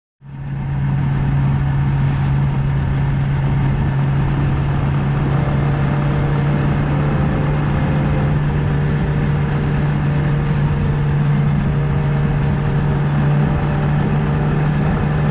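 Vehicle engine running at a steady, unchanging pitch under a constant rush of wind and road noise, fading in at the start. Faint ticks come about every second and a half.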